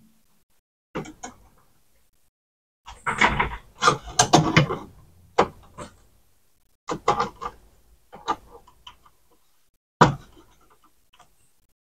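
Handling noise inside an opened CD changer: irregular clicks, knocks and light rattles of plastic and sheet-metal parts as flat ribbon cables are routed and pressed into place over the disc carousel, busiest about three to five seconds in.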